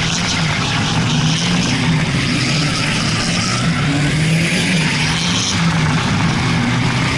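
Drift car's engine held at high, fairly steady revs with small dips in pitch while sliding through corners, under a constant rushing noise.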